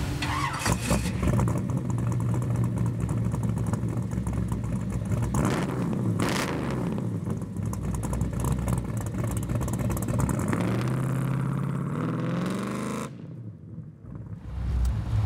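Pontiac GTO convertible's V8 engine and exhaust under hard acceleration, the pitch climbing as it revs up through the gears. Near the end the sound drops off sharply for a moment, then comes back loud.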